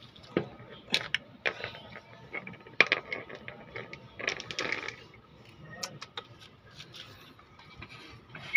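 Lug wrench working lug nuts off a steel wheel: scattered metallic clicks and clinks, with a short run of rattling and scraping about four seconds in.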